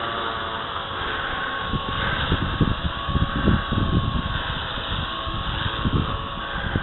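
Small radio-controlled helicopter's motor and rotor whining steadily in flight, with strong wind buffeting the microphone in low gusts, heaviest from about two to four seconds in.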